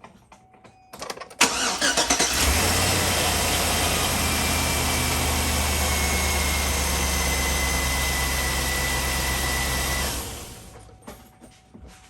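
Chevrolet Tahoe V8 engine cranked over by the starter, catching after about a second and idling steadily with a thin high whine for about eight seconds, then switched off and dying away. It runs smooth on the replacement coil packs fitted to cure a P0300 multiple-cylinder misfire.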